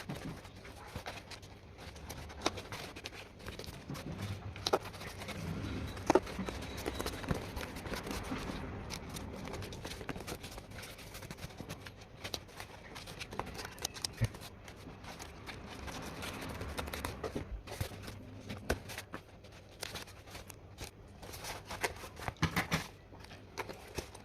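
Irregular small clicks, taps and scrapes of handling work, over a low steady hum.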